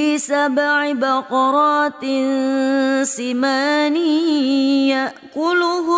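A woman's voice reciting the Quran in melodic tajweed style: long held notes that waver and bend in pitch, broken by short pauses, with a slightly longer pause near the end.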